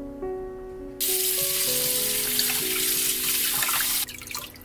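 Kitchen tap running into a stainless steel bowl of raw chicken breasts as they are rinsed: a steady rush of water that starts about a second in and stops abruptly near the end, over light background music with a simple melody.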